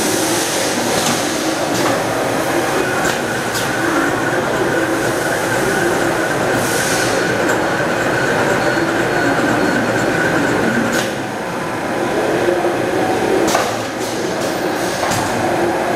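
Automated wire-forming and wire-binding machinery running with a robot arm: a steady mechanical din with scattered sharp clicks, and a steady high whine that stops about eleven seconds in.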